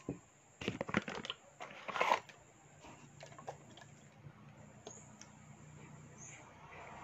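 Handling noise from a small glass bottle and its cap: a cluster of crackles and clicks about a second in, another just before two seconds, then scattered light ticks.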